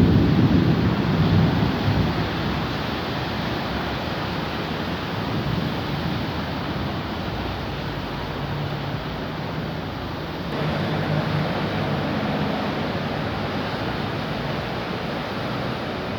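Heavy rain pouring steadily in a summer thunderstorm, with a low rumble of thunder dying away in the first couple of seconds.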